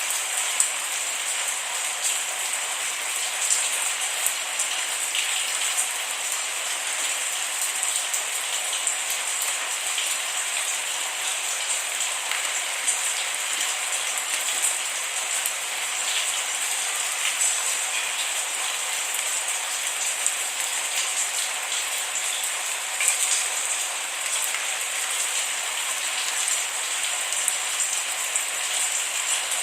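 Steady rain, an even hiss with many close individual drops ticking on a surface; no thunder.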